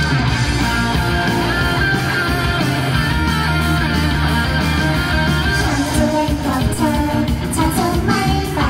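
Loud pop-rock song with electric guitar. A female voice sings over it, most clearly from about six seconds in.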